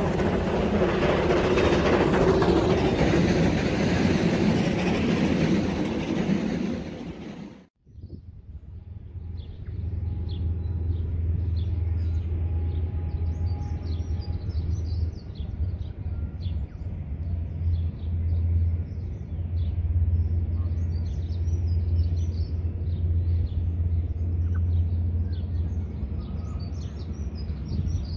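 A loud rushing rumble fills the first several seconds, then fades and cuts off abruptly. After that a distant train gives a steady low rumble as it approaches, with birds chirping over it.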